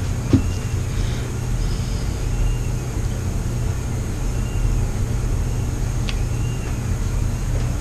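A steady low background rumble, with one faint click about a third of a second in.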